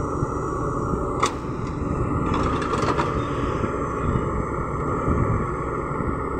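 LiuGong crawler excavator's diesel engine running steadily under load as the bucket digs and drags loose dirt, with two short clanks, one about a second in and another near three seconds.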